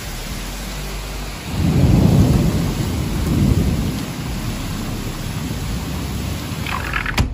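Heavy rain and strong storm wind making a steady rushing hiss. A deep rumble swells about a second and a half in and fades by about four seconds. A sharp click comes near the end.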